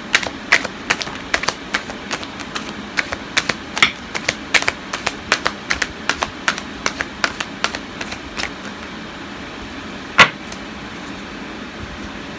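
Tarot cards being handled and shuffled: a run of irregular sharp clicks and snaps, several a second, for about eight seconds, then a single louder snap about ten seconds in, over a steady background hiss.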